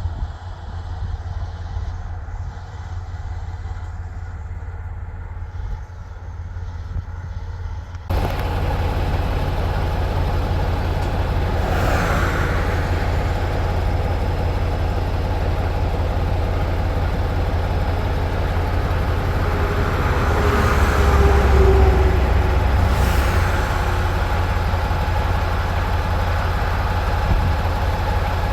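Steady low engine drone and road noise of a truck on the move, heard from inside the cab. About a third of the way in it turns suddenly louder and brighter, with two brief swells of noise later on.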